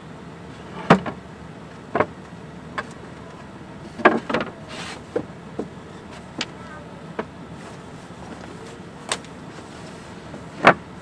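Scattered sharp knocks and clicks, about a dozen at irregular intervals, with the loudest about a second in and near the end, over a steady low hum.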